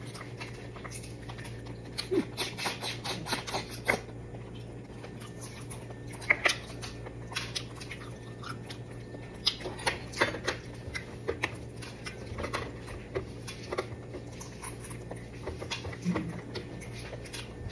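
Close-up eating sounds of balut being eaten: chewing, with scattered sharp clicks of shell and spoon and a quick run of clicks about two to four seconds in, over a steady low hum.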